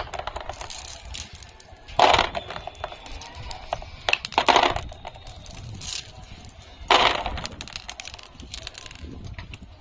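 Glass marbles clattering and rattling as they are poured into a toy dump truck to fill it: three louder pours, about two, four and a half and seven seconds in, with scattered clicks of single marbles between.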